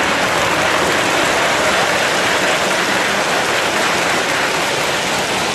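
Electric model trains running on metal track: a steady rolling hiss and rumble of wheels on rails.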